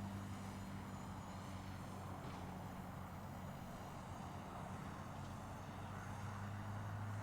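Low, steady engine hum of a motor vehicle or machine, fading a little in the middle and swelling again near the end, over a haze of distant road traffic.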